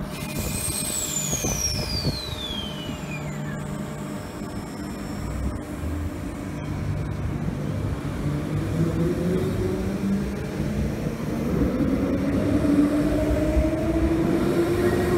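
Transperth A-series electric multiple unit accelerating along the platform: its traction motors give a whine that climbs steadily in pitch over a rumble that grows louder. A high whine falls steeply in pitch over the first few seconds.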